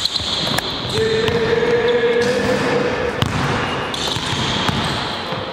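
Basketballs being passed and bounced on a wooden gym floor, with a few sharp slaps and thuds of the ball hitting the floor and hands, echoing in the hall. A steady tone of unclear source is held in the background for a few seconds.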